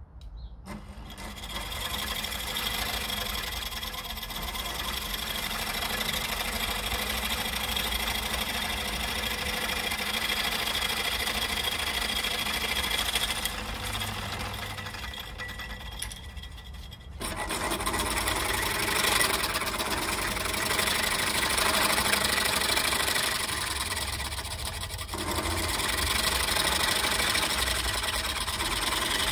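Hobbies fret saw converted to motor drive, running continuously with its blade going up and down. The sound grows louder and fuller about seventeen seconds in and shifts again a few seconds before the end.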